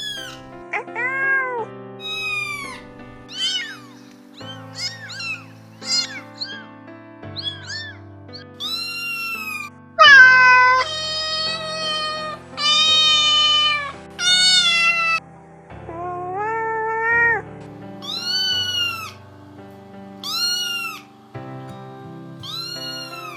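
Domestic cat meowing again and again: a string of separate meows that rise and fall in pitch, some short and high, some drawn out, the loudest a long meow about ten seconds in. Background music plays underneath throughout.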